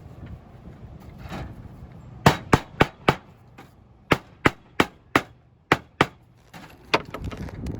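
Hammer blows, about a dozen sharp strikes in two quick runs, the first starting about two seconds in and the last near the end.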